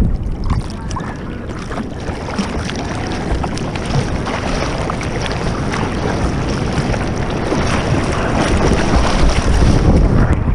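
Water splashing and sloshing against a bodyboard as it is paddled through choppy surf, heard from a head-mounted action camera just above the water, with wind buffeting the microphone. The splashing grows louder near the end as whitewater breaks over the board.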